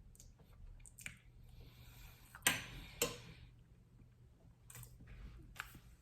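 Quiet sounds of someone eating cake: scattered small clicks and wet mouth sounds, with two sharper clicks about two and a half and three seconds in.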